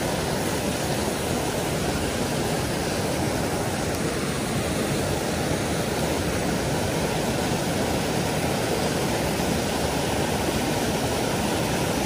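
Small mountain stream rushing over rocks and little cascades close by, a steady, even rush of water.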